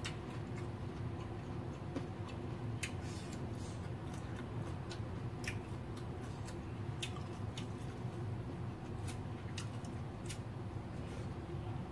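Close-up eating sounds: irregular small sharp clicks from chewing with the mouth open and fingers picking rice and beef from a plate, over a steady low hum.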